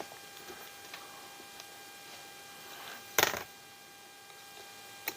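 Faint clicks and taps of hand tools and small parts during the teardown of an RC crawler's suspension, over a faint steady electrical hum. One loud, short clatter about three seconds in, and a sharp click near the end.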